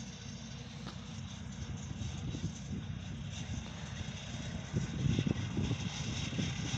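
Tractors running in the distance as they sow a field, under a low, gusty rumble of wind on the microphone that swells louder about five seconds in.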